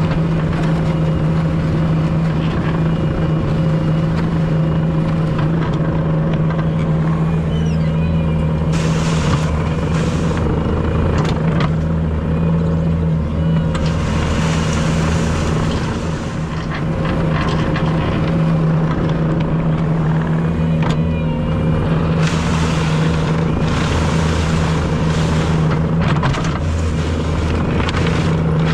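Bobcat T770 track skid steer's diesel engine running steadily under load, close up, with several spells of hissing noise over it.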